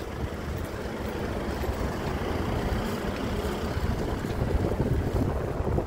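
Outdoor ambience: wind buffeting the microphone as an uneven low rumble over a steady wash of traffic noise.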